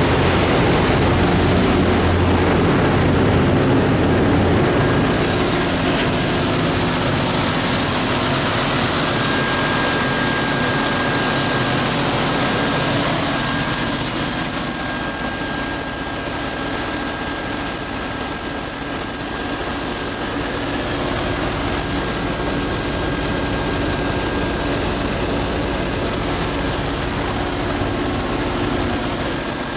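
MTU 12V4000 V12 diesel engine of a 1650 kW generator set running steadily with its cooling fan, a loud even roar. A constant high-pitched whine runs over it.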